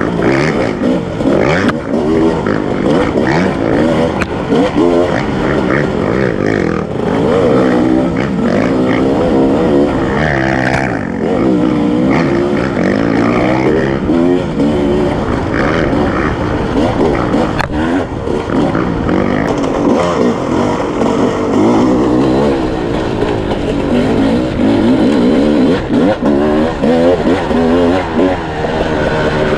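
Sherco 300 SE-R single-cylinder two-stroke dirt bike engine being ridden hard, its pitch rising and falling over and over as the rider opens and closes the throttle.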